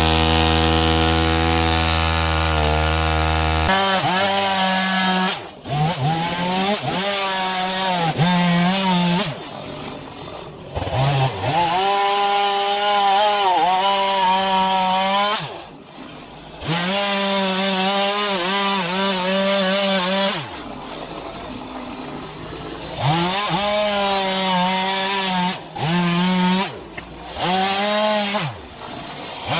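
Small two-stroke Stihl chainsaw carving into wood: it runs at a steady high speed for the first few seconds, then its pitch repeatedly sags as the chain bites and climbs again as it clears the cut, with several brief drops off the throttle.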